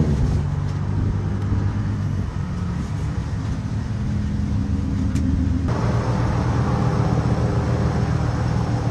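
Steady low vehicle hum, like a car's engine and road noise; the sound changes abruptly about two thirds in, with more hiss added.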